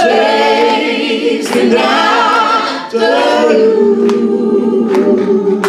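A cappella gospel vocal group of men and women singing in close harmony into microphones, holding long chords, with a brief break about three seconds in before a long sustained chord.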